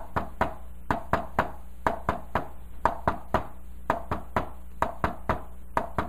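A hand tapping on a whiteboard in a repeated three-beat rhythm, about one triplet a second. It imitates the gallop of a third heart sound: S1, S2, then the extra S3 (the "Kentucky" cadence).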